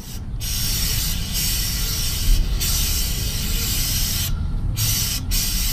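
Aerosol chain cleaner sprayed onto a motorcycle drive chain in long hisses broken by short pauses, the longest about four seconds in.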